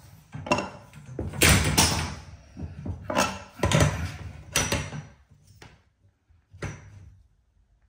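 Irregular knocks and clicks of handling on wall-mounted copper pipes and their clips as a spirit level is set against them, the loudest cluster about a second and a half in, thinning out to a few faint clicks near the end.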